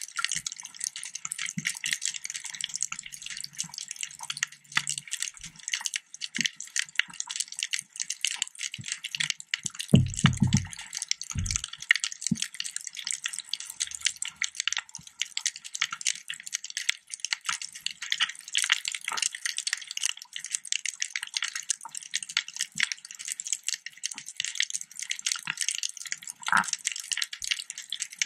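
Underwater reef ambience: a dense, steady crackle of fast clicks, typical of snapping shrimp on a reef. About ten seconds in there is a short low rumble.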